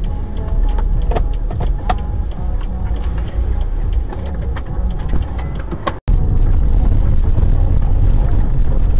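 Car driving, heard from inside the cabin through a dashcam's microphone: a steady low rumble of engine and road noise, with a few light ticks and rattles in the first half. About six seconds in the sound cuts out for an instant and comes back as a louder, steadier rumble.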